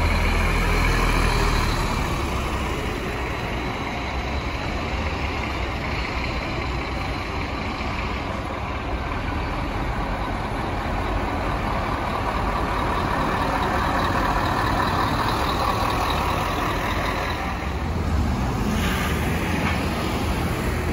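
Bus engine running close by, loudest in the first two seconds, then a steady rumble.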